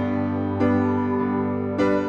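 Background music: slow keyboard chords, struck twice, each left to ring and fade.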